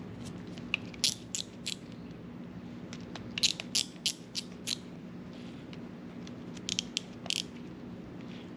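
Star drag of a Shimano Chronarch C14 baitcasting reel clicking as it is turned tighter: three quick runs of sharp clicks, a few clicks in each run, over a faint steady hum.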